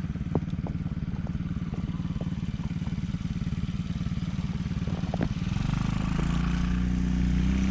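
Small 110cc ATV engine idling with an uneven putter and a few light clicks, then revving up about five and a half seconds in and holding a louder, higher note.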